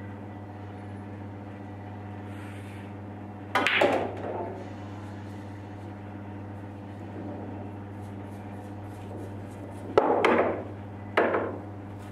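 Pool shot: the cue tip strikes the cue ball and the object ball knocks into the pocket, one sharp clack about three and a half seconds in. Two more sharp knocks follow near the end, over a steady low hum.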